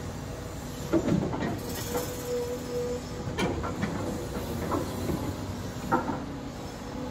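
CAT excavator running with a steady mechanical hum, with a series of clanks and knocks from its bucket and tiltrotator as it works; the loudest come about a second in and near six seconds.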